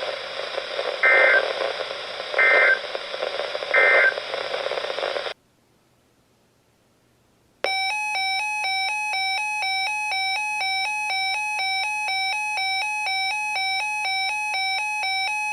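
Weather radio receiving NOAA Weather Radio: static hiss with three short data bursts about 1.4 seconds apart, the SAME end-of-message code closing the warning. After a couple of seconds of dead silence, the radio's electronic alert sounds, a rapid repeating pattern of alternating beeps.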